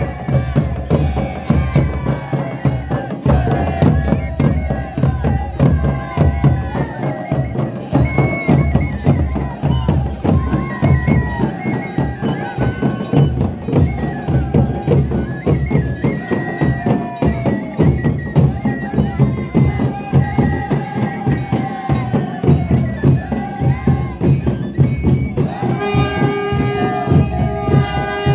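Traditional folk music: fast, steady drumming under a wavering melody line, with a steady held note joining near the end.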